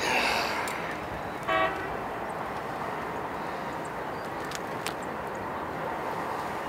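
Steady outdoor background noise, with one short honk about a second and a half in and a few faint clicks later on.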